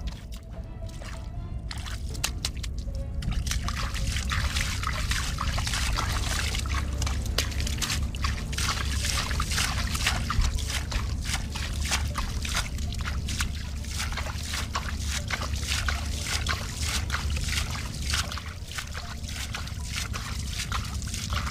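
Hands scooping and flinging muddy water out of a shallow puddle, a quick run of splashes and trickles that starts a couple of seconds in and keeps going.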